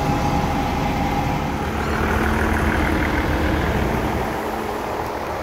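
Diesel semi truck engine running close by, a steady low rumble that eases slightly near the end.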